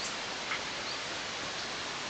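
Steady outdoor hiss picked up by a nest-camera microphone, with a short faint bird call about half a second in.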